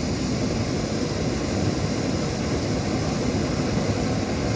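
MSR Pocket Rocket 2 canister stove burning at the gas setting it was lit on: a steady, even, low rushing roar of the burner flame.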